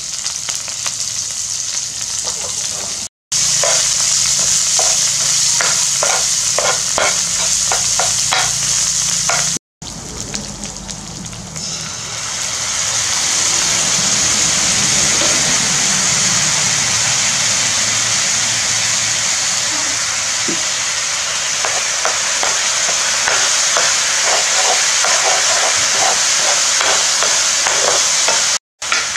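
Minced garlic and other chopped ingredients sizzling in hot oil in a nonstick frying pan, a steady frying hiss, with a metal ladle scraping and clicking against the pan. The sizzle dips for a moment and swells back louder about twelve seconds in, and it is broken by a few very short silences.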